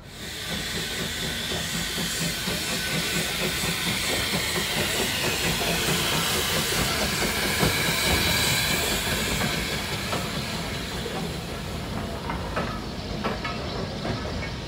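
Steam locomotive hauling a train of carriages past, its steam hissing steadily over the low rumble of the train. A few sharp clicks sound near the end.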